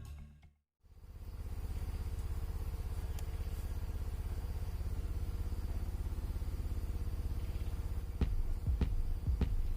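A small engine running steadily with a rapid, even pulse, fading in about a second in after a brief silence. A few sharp knocks come near the end.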